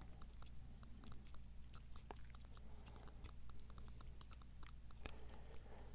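Faint, irregular small metallic clicks and scrapes of a Master Lock 930 padlock being worked by hand as a shim is slid in beside the key to free the core.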